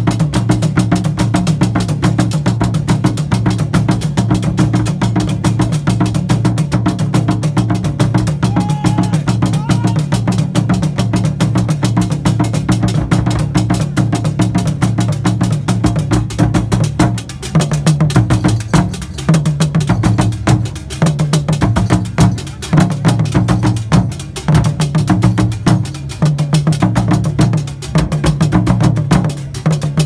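Fontomfrom drum ensemble: large Akan fontomfrom drums and a pair of smaller drums struck with curved wooden sticks, playing a fast, dense rhythm. About halfway through, the rhythm changes to shorter phrases with brief gaps between them.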